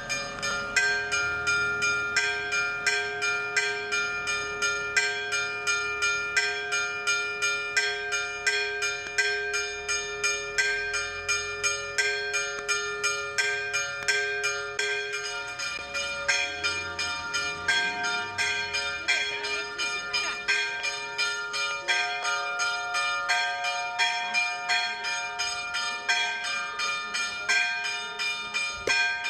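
Church bells of several pitches ringing in a fast, even peal, about three strikes a second, each stroke ringing on into the next; the deepest tone fades out about halfway through.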